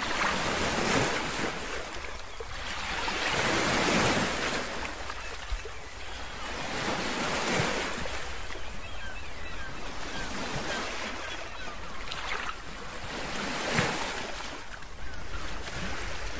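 Lake Erie waves washing in, swelling and falling about every three to four seconds over a steady rush.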